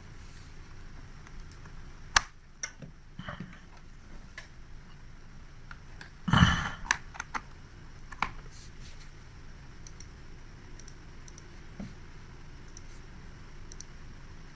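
Scattered clicks of a computer keyboard and mouse, with a louder, brief clatter about six seconds in.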